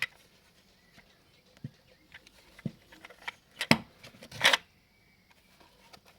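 Handling noise from a strap-type frame corner clamp: scattered clicks and knocks, the loudest two about three and a half and four and a half seconds in.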